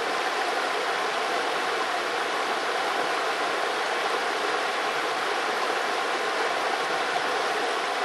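Small river flowing over rocks in a shallow riffle: a steady, unbroken rush and babble of water.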